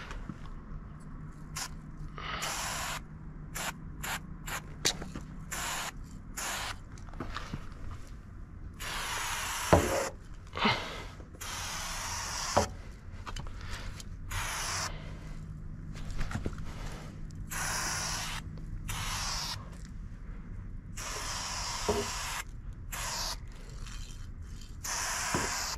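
Spray paint can hissing in repeated bursts, some short spurts and some held for a second or two, as lines and fills are sprayed. A few sharp clicks fall between the bursts.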